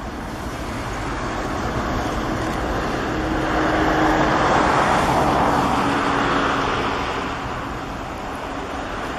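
Boeing 737-300's CFM56-3 turbofan engines at takeoff thrust during the takeoff roll: a broad jet roar that swells as the aircraft passes, loudest about four to five seconds in, then eases. A faint low hum runs under it, dropping slightly in pitch.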